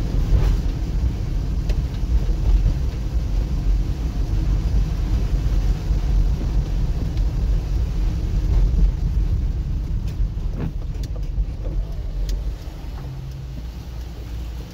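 Cabin noise of a moving car on a rain-wet road: a steady low rumble of engine and tyres, with a few faint ticks near the middle, dropping somewhat in level about twelve seconds in.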